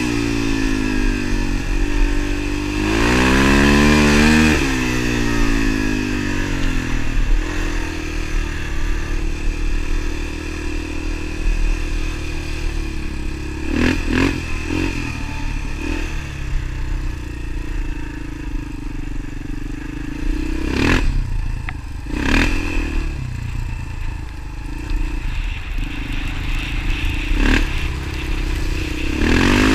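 Motorcycle engine revving up and down twice at the start and again at the end, running steadily in between, with a few sharp knocks about halfway through and later.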